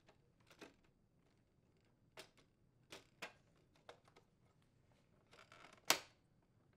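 Faint plastic clicks and taps as a new KitchenAid ice dispenser door assembly (part WPW10606117) is handled and pushed into position in the refrigerator's dispenser housing, with a brief rustle and one louder click near the end.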